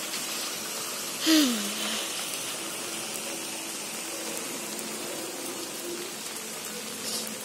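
Heavy rain falling steadily on a flooded paved lane, an even hiss of rain on wet ground. About a second in, one short, loud sound cuts through, its pitch falling.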